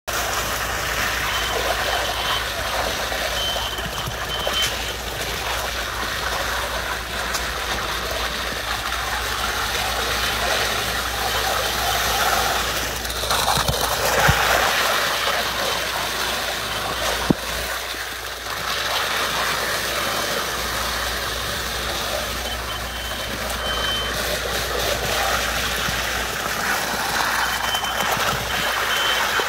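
Concrete pump truck running steadily as wet concrete streams out of its end hose into fresh concrete. A reversing alarm beeps in short spells near the start and again toward the end.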